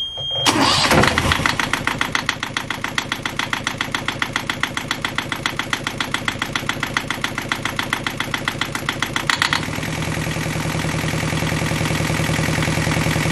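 Yanmar 2GM20F two-cylinder marine diesel being started and run, just after a raw-water impeller change, to check for leaks. A brief high-pitched beep comes first, then the engine cranks, catches and runs with a fast, even clatter. Near the end the sound changes, the clatter easing into a smoother idle.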